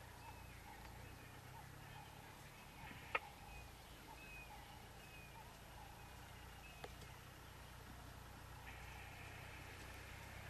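Faint bush ambience: short chirps repeating about twice a second over a low steady hum, with a sharp click about three seconds in. A faint high steady buzz comes in near the end.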